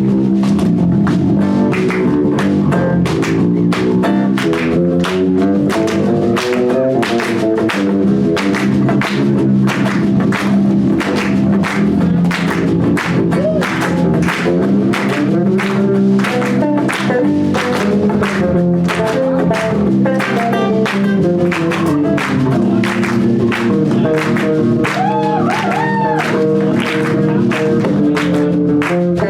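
Live rock band playing, with drums keeping a steady driving beat under bass and guitar.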